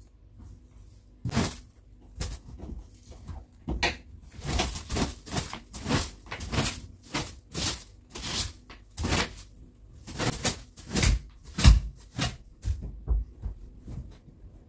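Quick rustling, swishing strokes of housework handling, a couple at first and then about two a second through most of the stretch, ending shortly before the end.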